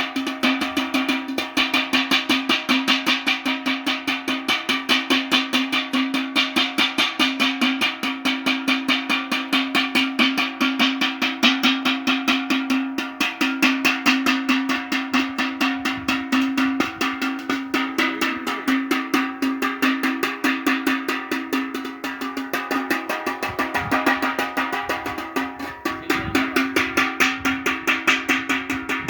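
Music with a fast, steady drum beat over a sustained low drone.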